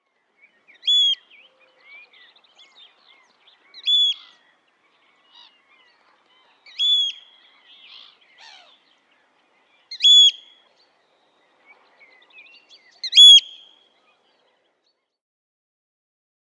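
Eurasian oystercatcher calling: five loud, high piping notes about three seconds apart, with fainter chirps between them.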